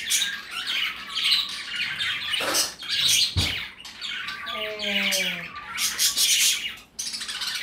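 Birds chirping and squawking in a busy run of quick, high calls, with one short falling call about five seconds in.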